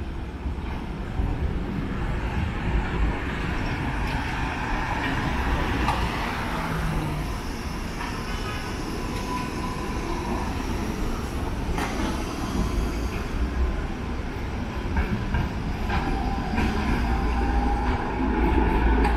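City street traffic dominated by trams: a steady low rumble of trams and cars on the road, with a car passing about halfway. Near the end a Tatra KT4 articulated tram rolls in, with a faint whine rising slowly in pitch.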